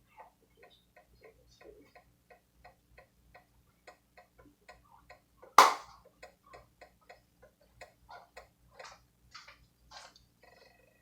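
Steady mechanical ticking, about three ticks a second, with one loud knock about halfway through.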